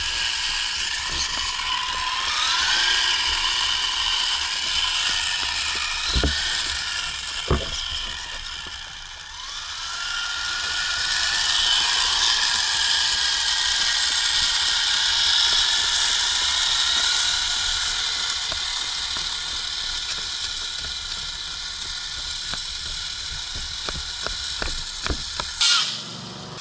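Traxxas Slash RC short-course truck's electric motor and gears whining, the pitch rising and falling with the throttle, over a steady hiss of tyres on wet pavement. A couple of sharp knocks, and a burst of hits and a splash as it drives through a puddle near the end.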